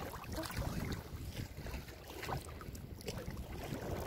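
Wind buffeting the microphone over the sloshing of shallow seawater around people wading through it.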